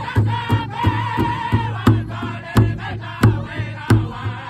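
Powwow drum group: several men striking one large shared drum in a steady beat while singing together in high, held voices. The voices drop away near the end while the drumbeat goes on.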